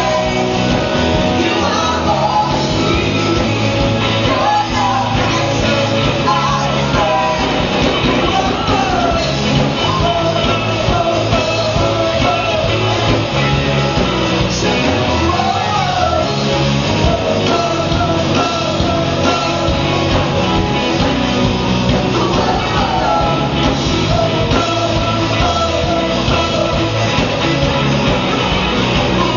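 A band playing a rock song live, with a singer's voice over guitar, bass and drums.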